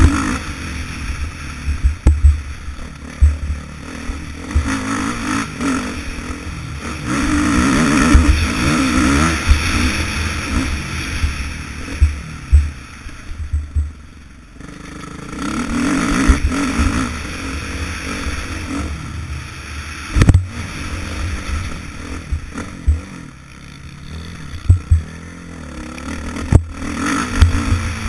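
Motocross dirt bike engine revving hard on the throttle, dropping off briefly about halfway through and then pulling again. Wind buffets the helmet-mounted microphone, and there are occasional sharp thumps.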